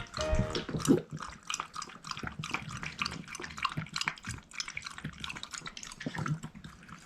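Shiba Inu puppy eating its dinner: quick, irregular wet licking and chewing clicks, with a louder click about a second in.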